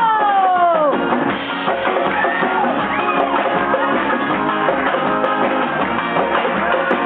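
Band music with drums and guitar, dense and steady, with a long voice sliding down in pitch in the first second.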